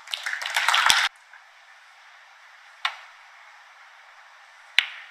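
About a second of loud, crackly noise that cuts off abruptly, then two sharp clicks of a snooker shot, the second one, about two seconds after the first, louder.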